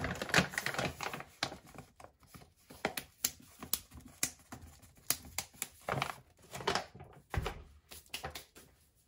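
Kraft-paper protein powder bag rustling and crinkling as it is handled and closed, with a string of small irregular taps and clicks and one dull thump about seven seconds in.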